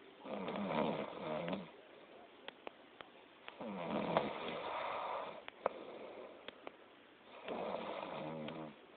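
A sleeping person snoring loudly: three long snores, each lasting about a second and a half, coming roughly every four seconds, with faint ticks in the gaps between them. The uploader wonders whether the snoring is a sign of obstructive sleep apnea or ordinary chronic snoring.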